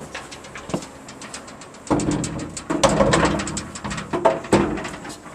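Cellar bulkhead doors being set onto their frame: a few sharp knocks, then a busy stretch of clanks, rattles and scraping from about two seconds in.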